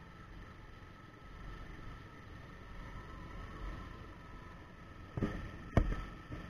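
Bajaj Avenger 220 motorcycle running along a road, with wind rushing over the microphone. About five seconds in come two sharp knocks, the second louder.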